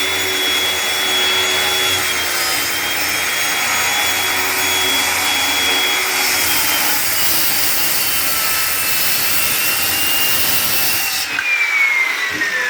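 Circular saw cutting through a board on a shallow dado-clearing pass, its motor whining steadily under load. Near the end the cutting noise stops and the whine falls away as the blade spins down.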